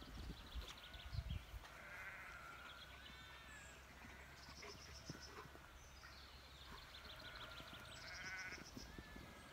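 Faint outdoor ambience with distant wavering animal calls, heard about three times, and quick high bird trills.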